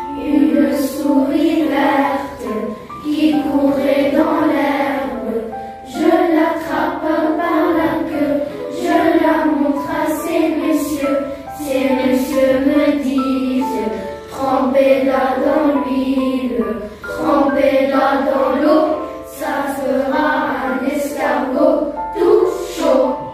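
A group of children singing a song together, phrase after phrase, which cuts off suddenly at the end.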